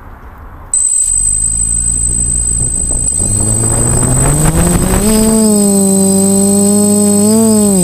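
DJI F450 quadcopter's four brushless motors and propellers spinning up: a hum starts suddenly about a second in and rises steadily in pitch for several seconds, then holds a steady droning pitch with a brief waver near the end.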